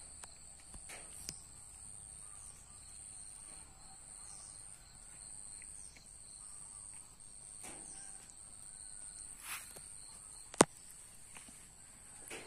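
Insects trilling steadily in a high, slightly pulsing pitch, with a single sharp click about ten and a half seconds in.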